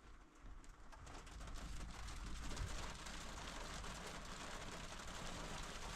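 Heavy rain pattering down, a steady hiss of drops that swells over the first couple of seconds and then holds.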